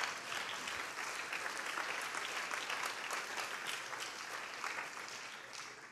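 A church congregation applauding, many hands clapping together, dying down near the end.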